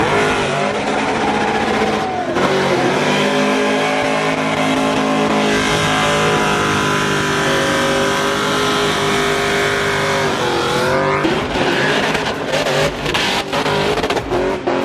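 Drift car doing a burnout, its engine revved hard with the tyres spinning. The revs rise and fall at first, then hold steady at a high pitch for several seconds, then rise and fall again near the end.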